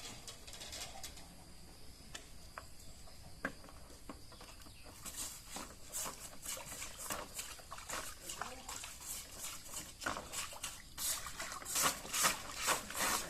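Scattered light clicks and taps, then from about five seconds in a run of quick, hissy scraping strokes that grow louder near the end, typical of hand-cleaning or abrading a part.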